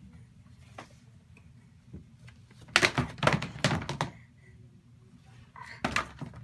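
Children's board books being pulled off a wooden bookshelf and dropping onto a pile of books on the floor: a quick run of thuds and slaps about three seconds in, then another thud near the end.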